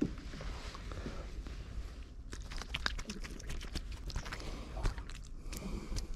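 Hands handling an inchiku jig and the small fish just caught on it: a run of light clicks and rustles, densest in the second half, over a low rumble of wind and water.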